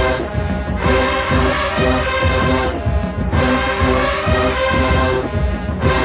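Large marching band playing a tune: sousaphones, trumpets and trombones over drums with a heavy low end. The upper horns cut out briefly about every two and a half seconds while the low brass and drums keep going.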